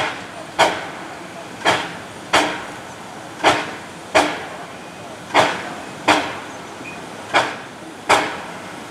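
Narrow-gauge train's wheels clacking over rail joints as it rolls slowly, in evenly spaced pairs of sharp knocks about every two seconds.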